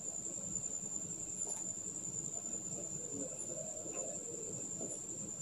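A steady high-pitched trill, with a faint low murmur beneath and a couple of faint ticks, about one and a half and four seconds in.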